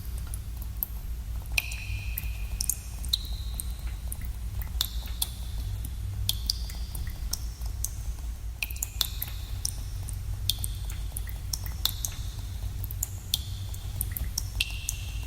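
Water drops dripping in a cave, irregular plinks about one or two a second, each with a short ringing pitch and echo, over a steady low rumble.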